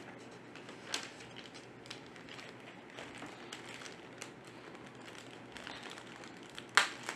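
Clear plastic bag holding a coiled cable crinkling and rustling as it is handled, with faint scattered crackles and a louder, sharper crinkle near the end. A paper instruction sheet rustles as it is laid on the table.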